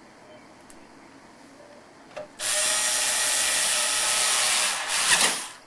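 A screw being driven into the CD drive's side in the computer case's metal drive bay: a steady rasping noise that starts abruptly about halfway in, lasts about three seconds and stops shortly before the end.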